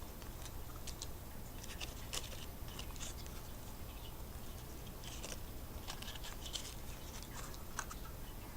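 Faint scattered small clicks and crinkles of a Zippo lighter and dry snakeskin being handled and fitted by hand, over a low steady hum.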